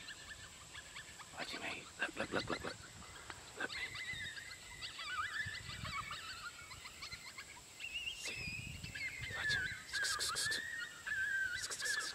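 Coyote vocalizing: a quick run of short yips about two seconds in, then high, wavering howls that slide up and down in pitch.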